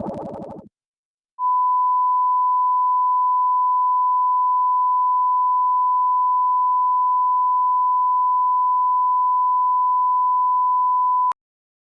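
A distorted, garbled sound effect dies away in the first second. After a short silence, a steady 1 kHz sine test tone sounds for about ten seconds and cuts off abruptly. It is the tone a TV station plays once it has gone off the air.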